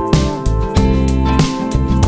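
Background music: an instrumental stretch of a song between sung lines, with held chords and a steady drum beat.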